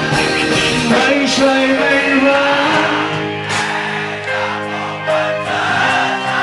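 Live band music with singing.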